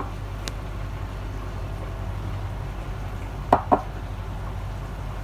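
A bowl set down on a stone countertop: two short knocks close together about three and a half seconds in, over a steady low hum.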